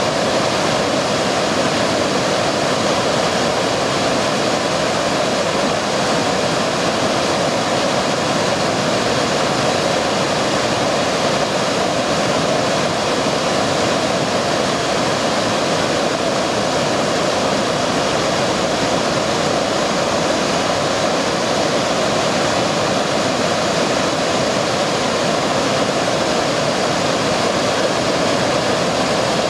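Wide waterfall pouring over a rock ledge into a river: a steady rush of falling water.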